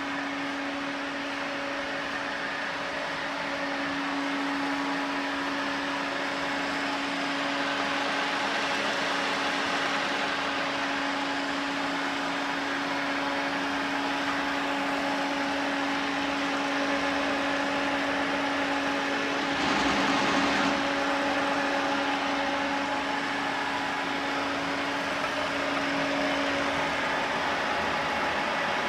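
Steady machine hum with one constant mid-pitched tone over a hiss, and a brief louder burst of noise about two-thirds of the way through.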